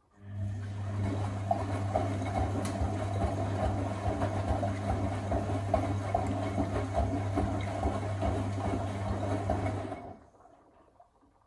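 Electra Electronic 1100 washing machine's drum motor turning the drum through a wash tumble with a load of wet towels: a steady motor hum over the swish of water and laundry. It starts almost at once and stops abruptly after about ten seconds as the drum pauses between tumbles.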